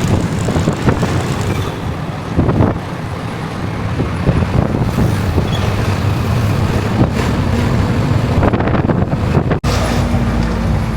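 Engine rumble and traffic noise heard from inside a moving public passenger vehicle, with a few knocks and rattles. Near the end the sound breaks off suddenly and gives way to a steadier low engine hum.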